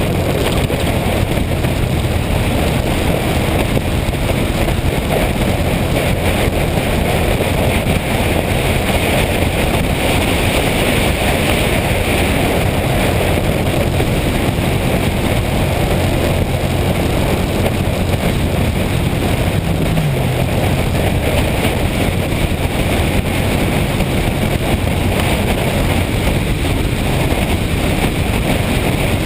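Motorcycle engine running at road speed with wind rushing over the microphone; the engine pitch dips briefly about two-thirds of the way through.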